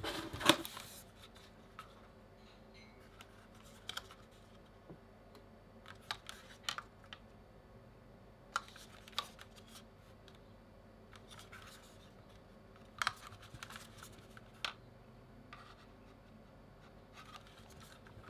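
Handling noise from two plastic wireless gaming mice, a Logitech G Pro X Superlight and a G305, being lifted and turned over in the hands: scattered light plastic clicks, taps and rubs. The loudest is a sharp knock about half a second in.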